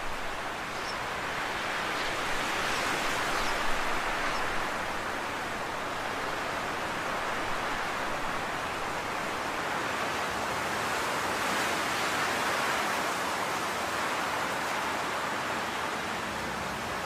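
Steady rushing noise, like hiss, that swells and fades slowly over several seconds.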